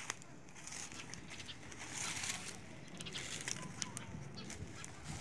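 Dry leaves and twigs crackling as they catch fire in a small open fire, with many scattered sharp pops and snaps.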